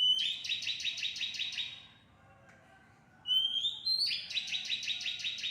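A songbird singing two phrases. Each is a short rising whistle followed by a quick, even run of about seven sharp, high chirping notes. The second phrase begins about three seconds in.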